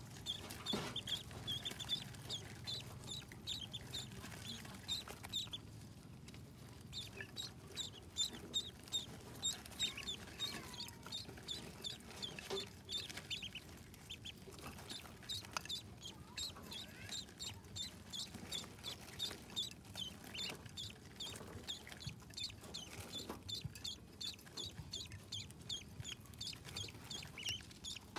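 A brood of newly hatched ducklings peeping: many short, high cheeps that overlap in a quick, steady stream, several each second.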